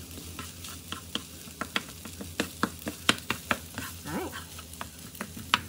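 Fried rice sizzling in a skillet while a wooden spatula stirs it, scraping and tapping the pan: a steady low sizzle under irregular clicks.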